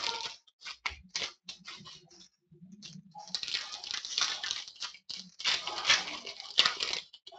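Plastic trading-card pack wrappers crinkling and rustling as they are handled, in quick irregular crackles, sparse at first and densest in the second half.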